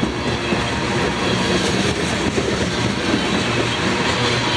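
Freight train of tank cars rolling past: steady rumble and clatter of steel wheels on the rails.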